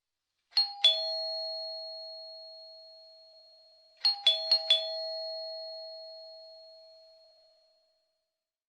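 Two-note ding-dong doorbell chime, high note then low. One ding-dong sounds about half a second in, then about four seconds in a quicker run of four strikes. Each group rings on, fading slowly over about three seconds.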